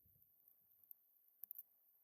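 Near silence, with a few faint clicks about a second in and again around a second and a half.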